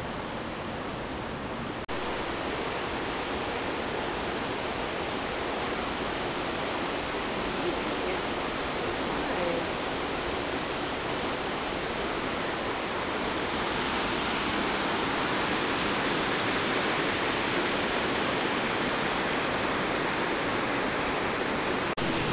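River water rushing over rocks through a gorge, a steady rush of white noise that grows louder in the second half as a waterfall comes near.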